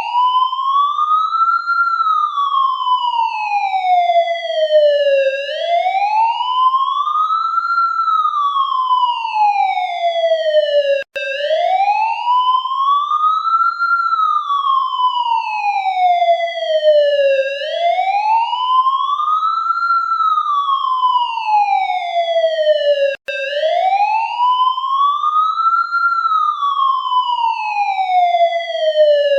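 Police siren sounding a slow wail, its pitch rising and then falling about every six seconds. It cuts out for an instant twice, about eleven and twenty-three seconds in.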